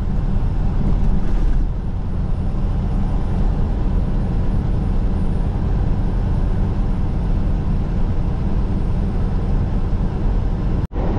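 Semi truck driving on the highway: steady engine and road noise, cutting out for a moment near the end.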